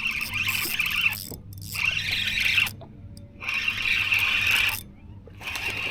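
Fishing reel being cranked in spurts, four bursts of whirring about a second each with short pauses between, over a steady low hum.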